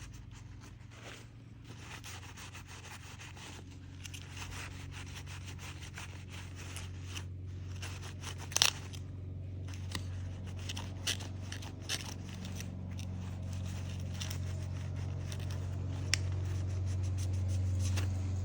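Close hand work on a small LCD panel: faint scraping, rubbing and scattered small clicks, with one sharp click about eight and a half seconds in, over a steady low hum that slowly grows louder.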